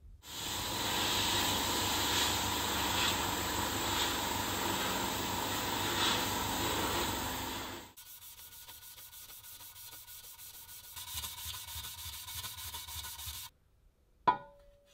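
Scratchy abrasive scrubbing on the grater's sheet-metal housing, done by hand with an abrasive pad. It is loud for about the first eight seconds, then quieter, and stops about a second before a single sharp metallic clink that rings briefly as the housing is set down.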